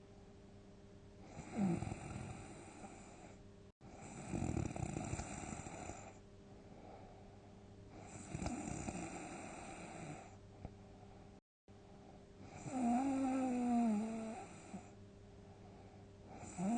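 A sleeping person snoring loudly, four snores spaced about three to four seconds apart. The last snore carries a wavering tone that falls in pitch.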